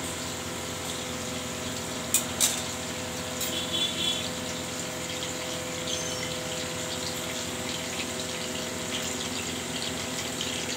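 Hot cooking oil sizzling steadily in a kadhai, with two sharp metal clicks of the slotted spatula against the pan about two seconds in.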